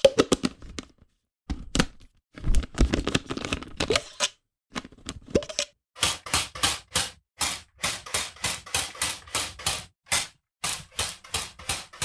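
Squirt bottle being squeezed: irregular squirts and sputters in the first half, then a quick, even run of short sharp squirts, about three or four a second.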